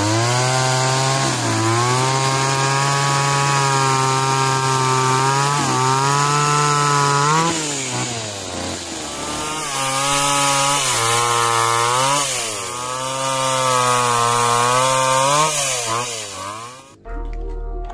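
Small two-stroke grass-cutter engine, converted into a mini chainsaw with a grinder chainsaw adapter, running at high revs. Its revs dip and recover several times, and it cuts off suddenly near the end.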